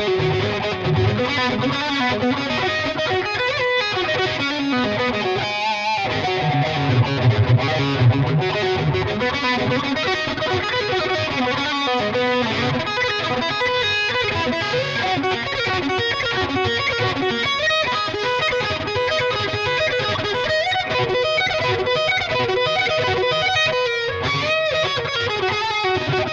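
Epiphone Les Paul Studio electric guitar played through heavy distortion, running riffs and lead lines. A brief break comes near six seconds in, followed by loud low notes.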